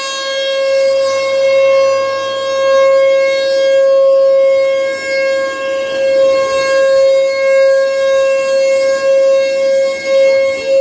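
Three Mile Island nuclear plant's T-128 outdoor emergency warning siren sounding a steady single-pitch tone during an activation, its loudness swelling and dipping every second or two.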